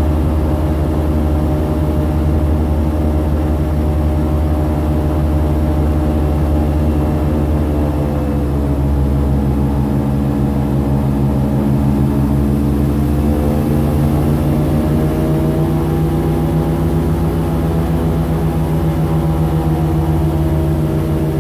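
Airboat engine and propeller running loud and steady under way, easing off about eight seconds in and picking back up a few seconds later.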